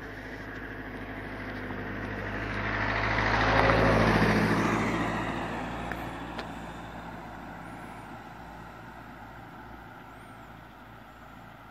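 A car driving past on the road, getting louder to a peak about four seconds in and then slowly fading as it moves away.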